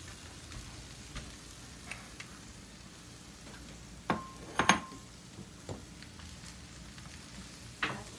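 Chopped vegetables frying softly in a pan while a utensil stirs them. There are a few sharp clinks of the utensil against the pan: the loudest, with a short ring, come about four to five seconds in, and another comes near the end.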